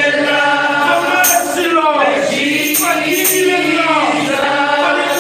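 A woman sings a slow worship song into a microphone over a PA, holding long notes that slide between pitches.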